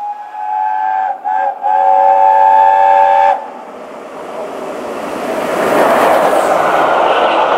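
LNER Peppercorn A1 Pacific steam locomotive 60163 Tornado sounding its whistle in a long blast broken by two quick gaps, which stops about three seconds in. The locomotive and its carriages then pass at speed with a rising rush of exhaust and wheels, loudest about six seconds in.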